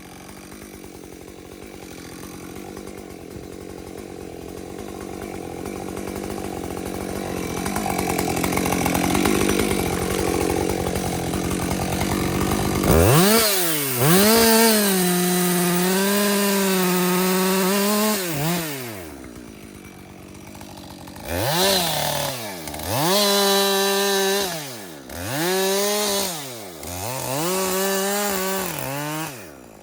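Two-stroke chainsaw cutting into a pine trunk, its engine note rough and growing louder for the first dozen seconds. About 13 s in it revs high and steady for about five seconds, then drops, and near the end it is revved up and let down four times in short blips.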